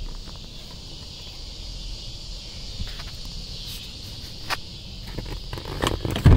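Handling noise of a hand working around a pickup's rear seat and centre console: scattered light knocks and rubbing, with one loud thump near the end. A steady high drone of insects runs underneath.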